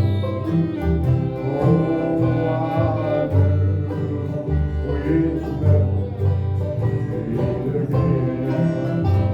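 Bluegrass band playing a slow country song: fiddle with banjo and guitar, over a bass line that alternates notes on a steady beat.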